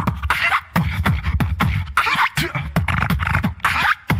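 Human beatboxing: a quick run of sharp percussive clicks and snare-like hits over deep bass sounds, with hissy, breathy sounds mixed in.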